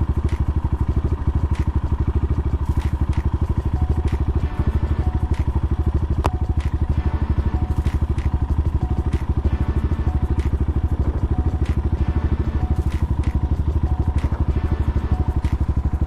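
Bashan 250 dirt bike's single-cylinder engine running steadily, its firing pulses even throughout.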